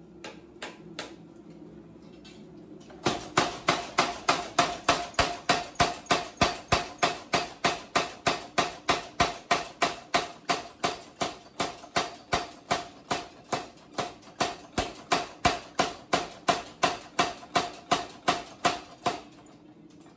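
Power hammer pounding a red-hot steel blade on its anvil die, a steady run of sharp metallic blows at about three a second. It starts about three seconds in after a few light knocks and stops shortly before the end.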